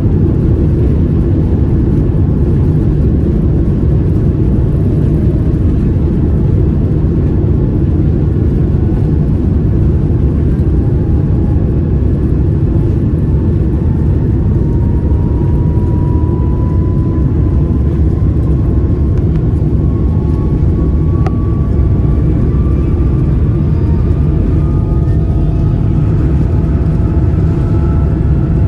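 Boeing 787-9 Dreamliner cabin noise during takeoff: a steady, loud engine and air rumble with a faint whine that rises slowly in pitch through the second half.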